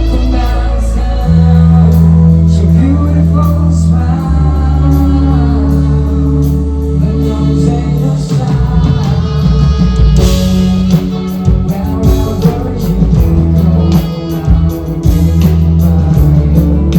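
Live rock band playing: long held bass notes under electric guitar and keyboard. About eight seconds in, the drums come in, with a cymbal crash a couple of seconds later.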